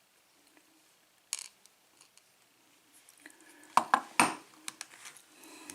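Small metal parts of a euro cylinder lock and hand tools clicking and clinking as the lock is handled during disassembly. There is a single click about a second in, and a louder cluster of three or four sharp clicks past the middle.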